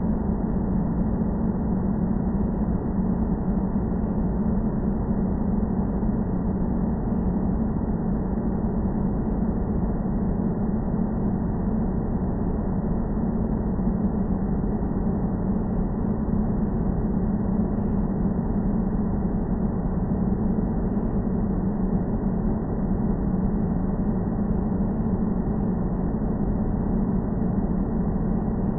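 Airplane noise: a steady, unchanging low drone with a strong hum at its core.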